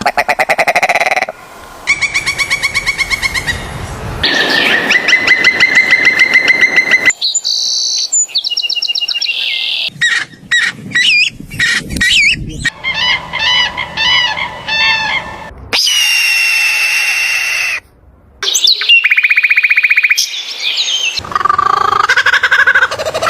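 A string of different animal calls, mostly bird-like chirps, trills and whistles. Each is held for a few seconds and then cut off abruptly for the next, as in a compilation of animal sounds.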